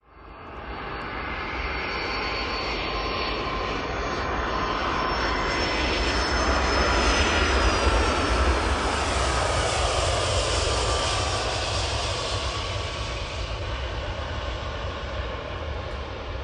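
Fixed-wing aircraft flying past: the engine sound builds from the start, is loudest about halfway through, then fades away, with a high whine that drops in pitch as it passes.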